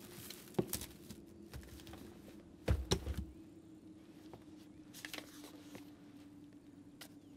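Quiet cabin foley: a few soft knocks and one heavier thump about three seconds in, as of something set down on a wooden table, over a faint steady low tone.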